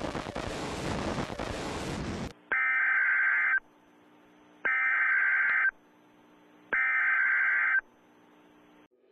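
TV static hiss that cuts off after about two seconds, followed by the Emergency Alert System header: three identical electronic data bursts about a second long, each a second apart, signalling a broadcast tornado warning.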